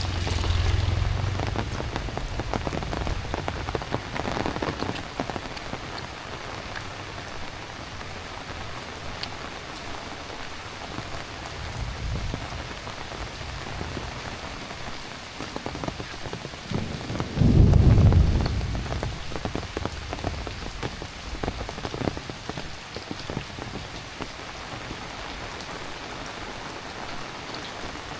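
Heavy rain falling steadily, with rumbles of thunder: a low one at the start and a louder one that breaks in suddenly about two-thirds of the way through.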